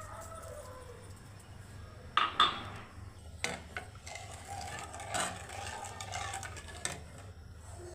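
Kitchen utensils clinking and knocking against dishes, with a few sharp knocks starting about two seconds in, over a steady low hum.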